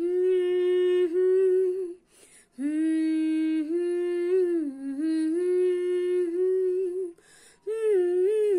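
A woman humming a song's melody without accompaniment, in long held notes. She pauses briefly for breath about two seconds in and again about seven seconds in.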